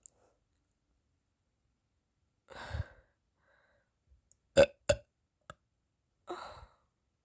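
A person burping close to the microphone: a half-second burp about two and a half seconds in, two short, sharp, louder ones in quick succession a couple of seconds later, and another half-second burp near the end.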